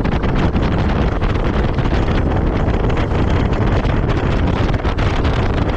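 Wind buffeting the microphone on a fishing boat running fast across open lake water, with the boat's motor underneath and frequent small knocks as the hull meets the chop.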